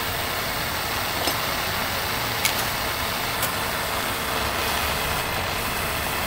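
Steady rushing noise with a few short, sharp clicks, about a second apart, as a magnet and a square steel tube are set against a steel plate as a straight edge.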